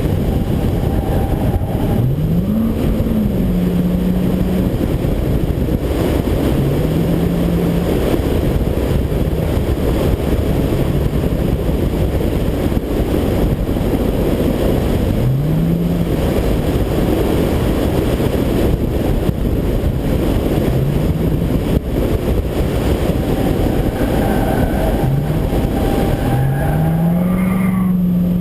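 Pickup truck engine accelerating hard again and again, its pitch climbing about every four seconds between lifts, under a dense rush of wind and road noise on a roof-mounted camera microphone.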